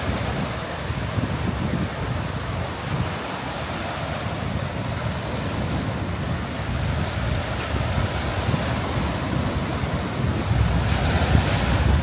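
Small waves breaking and washing up a sandy beach in a steady surf hiss, with wind rumbling on the microphone. A larger wave breaks and fizzes up the shore near the end.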